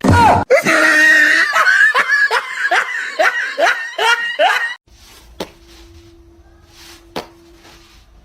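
A person laughing hard in a quick run of loud bursts for about five seconds, then stopping. After that only a faint steady hum and two sharp clicks.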